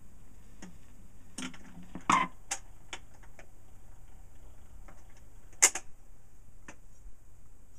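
Portable record player's tonearm mechanism clicking and clunking as the arm swings across the record, over a steady low hum from the turntable. Two clunks stand out, about two seconds in and just before six seconds.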